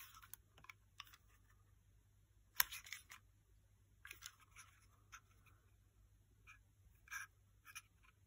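Faint scattered clicks and rustles of a small blank-firing pistol being handled and turned over in the hand, with one sharper click about two and a half seconds in.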